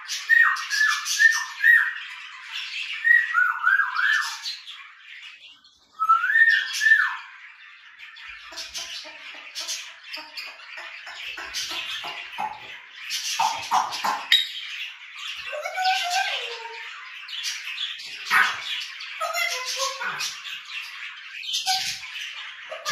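African grey parrot whistling short falling notes in quick groups of three or four during the first seven seconds, then giving varied lower squawks and calls, over the constant chattering of budgerigars.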